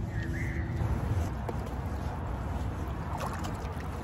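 Wet magnet-fishing rope and grappling hook hauled up out of the water beside a kayak, with water dripping and light handling noises over a steady low rumble of wind on the microphone. A few small ticks come about three seconds in.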